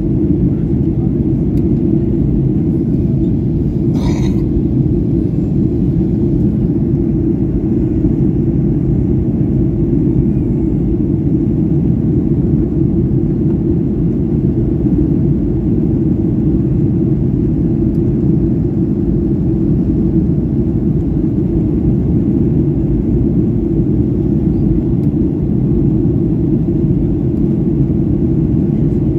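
Cabin noise of a Boeing 737-800 in flight: a steady low rumble of engines and airflow heard from a passenger seat. A brief sharp sound about four seconds in.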